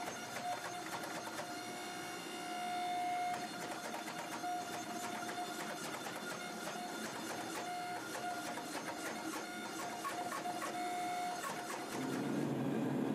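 Hydraulic forging press running as it squeezes a forge-welding-hot canister billet of ball bearings: a steady whine that cuts in and out over a dense crackle of fine ticks. About a second before the end, a louder, lower rushing noise takes over.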